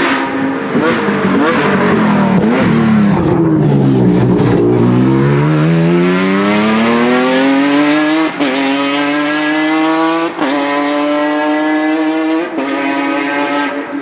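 Sports-prototype race car's engine: the pitch falls unevenly with crackles as it slows for the bend, then climbs steadily as it accelerates hard away. Three quick upshifts about two seconds apart each give a brief dip before the pitch climbs again.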